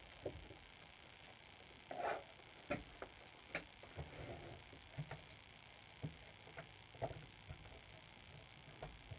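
Light metal clicks and knocks, about one a second, with a short scraping rustle about two seconds in, as a new bar and chain are handled and fitted onto a chainsaw.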